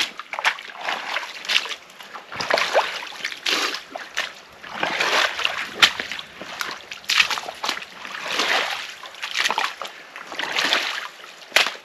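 Rubber boots stepping and scraping in a shallow, muddy flooded channel: repeated uneven splashes and sloshes about once a second. The scraping clears mud and debris so that more water flows through the channel.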